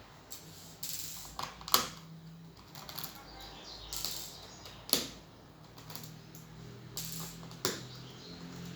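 Hand tools working on the plastic casing of an Acer Aspire R3-131T laptop: scattered sharp clicks and taps with short scrapes between them, the loudest click a little under two seconds in.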